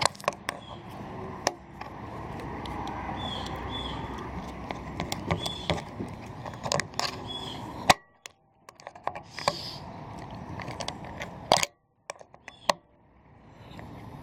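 Scattered sharp clicks and knocks of parts and tools being handled, over a steady background noise, with a few short high squeaks. The sound drops out abruptly twice.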